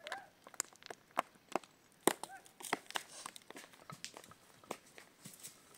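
Footsteps on bare rock and loose stones, heard as irregular sharp clicks and knocks, with the clack of a bundle of dry firewood carried on the back. A short animal call sounds twice, once at the start and once about two seconds in.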